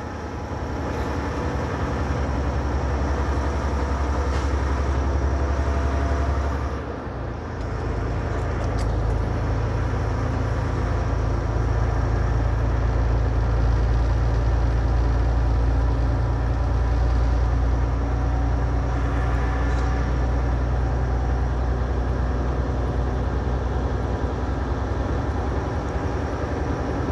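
Semi truck's diesel engine running steadily, heard from inside the cab while driving on the highway. About seven seconds in the engine sound dips briefly, then comes back steady at a somewhat higher pitch.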